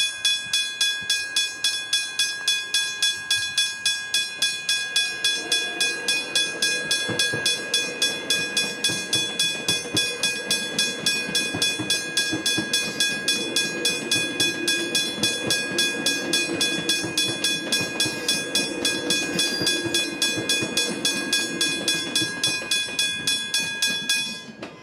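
Westinghouse hybrid railway crossing bell ringing rapidly, about three strikes a second, then cutting off suddenly just before the end. From about five seconds in, the rumble of a train rises underneath the ringing.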